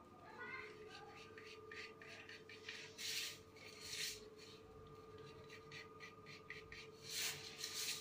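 Pencil lead scratching across drawing paper in short strokes, with a few longer, louder sweeps about three, four and seven seconds in, over a faint steady hum.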